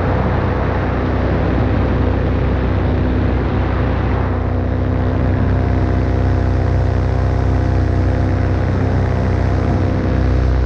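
Paramotor engine and propeller running steadily in flight, a constant drone with no change in speed.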